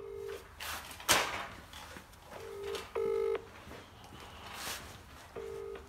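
British telephone ringback tone from a mobile phone on speaker. It is the double ring of two short steady tones and a pause, repeating about every three seconds, as the call rings out unanswered. A sharp click comes about a second in.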